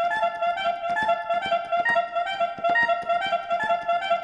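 Electronic keyboard, played from an M-Audio MIDI keyboard, playing a fast, even cumbia pattern of short notes that keeps returning to one repeated note with higher notes in between.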